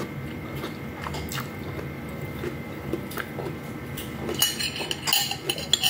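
Metal spoon clinking and scraping against a plate: a few scattered light taps at first, then a quick run of ringing clinks in the last second and a half.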